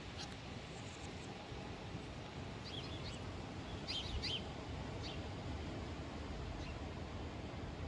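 Birds chirping in short high calls, in small clusters about three and four seconds in, over a steady low background noise of the open countryside.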